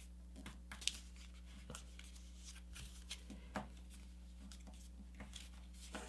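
Paper being folded and creased by fingers: faint rustling and soft crackles with a few sharper clicks, the loudest just under a second in.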